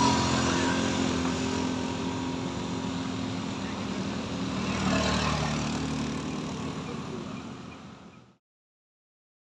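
Engines of motorcycles and a car passing on a steep hill road, with one vehicle swelling louder about five seconds in. The sound fades out about eight seconds in and then cuts to dead silence.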